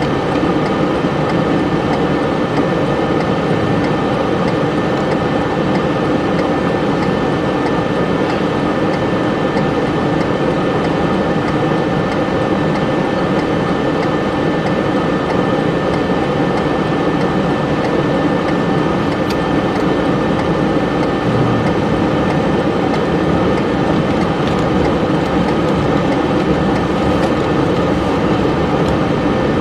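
Steady noise inside a car cabin: the engine and heater-defroster fan running, with no change in level.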